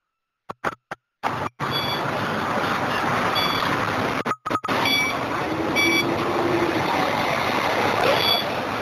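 Bus fare-card reader giving short high electronic beeps, five times at uneven intervals as passengers tap on, over the steady noise of the bus interior with its engine running. The sound cuts out completely several times in the first second and a half.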